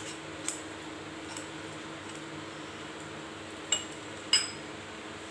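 Two light clinks of a steel mesh strainer against a drinking glass, a little over half a second apart near the end, each ringing briefly, over a faint steady hum.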